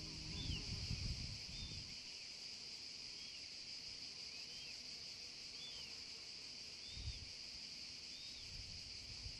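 Steady high drone of cicadas, with a bird's short high call repeated about once a second. Low rumbles come in the first couple of seconds and again about seven seconds in.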